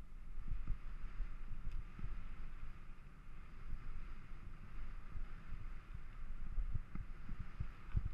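Mountain bike rolling along a dry dirt singletrack: a low rumble with irregular knocks as the bike goes over the bumps, with a faint hiss of tyres and wind on the microphone. The knocks get heavier near the end.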